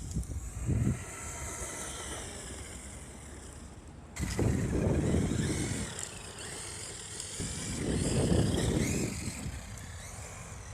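Traxxas X-Maxx RC monster truck running on a 6S battery: its brushless motor and drivetrain whine, rising and falling in pitch as it speeds up and slows down. There are two loud surges, one about four seconds in and one near eight seconds, as it runs at full throttle.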